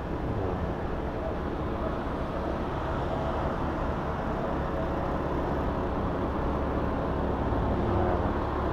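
Steady road traffic noise: the engines and tyres of passing vehicles, swelling slightly near the end.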